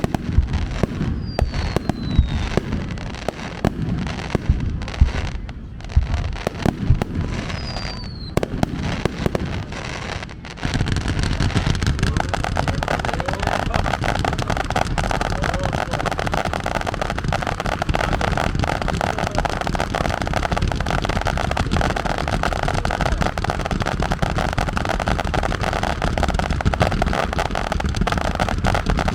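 Fireworks finale: shells bursting in quick succession with two short descending whistles in the first part, then about ten seconds in a sudden jump to a dense, continuous barrage of bangs and crackle.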